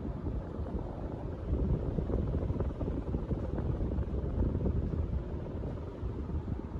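Hampton Bay Huntington III ceiling fan with a 188 mm motor running, its blades buffeting the microphone with a steady low rush of air and a faint motor hum.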